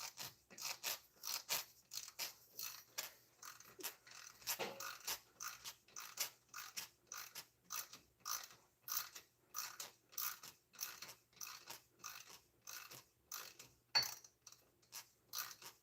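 Ratchet wrench clicking in a faint, steady run of quick clicks, about three a second, as an AC compressor bolt is turned down by hand with little effort. The bolt is threading in without cross-threading. One sharper click comes near the end.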